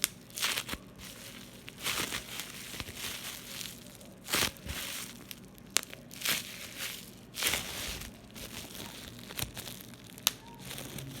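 Bubble wrap being squeezed and crinkled by hand, in crackling bursts every second or two, with a few sharp pops.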